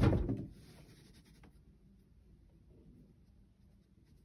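A single firework bang right at the start, with a rumbling decay over about half a second, followed by faint crackling for about a second.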